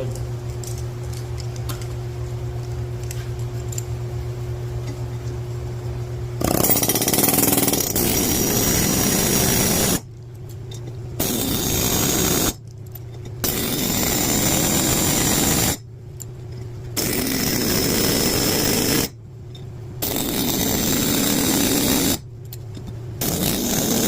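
Pneumatic air hammer with a valve-guide driver rattling as it drives new valve guides into a cylinder head. It runs in six bursts of two to three seconds with short pauses between, beginning about six seconds in, after a steady low hum.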